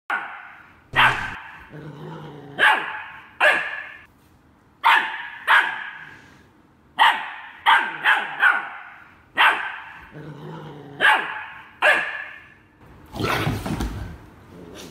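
Small dog yapping at a German Shepherd, about a dozen sharp barks roughly one a second. Near the end comes a louder, rougher noise.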